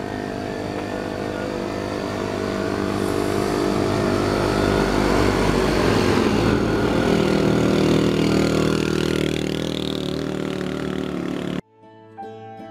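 Engine of a moving vehicle running steadily, with a louder stretch of road and engine noise in the middle as an oncoming motorbike passes. The sound cuts off suddenly near the end and plucked harpsichord-like music begins.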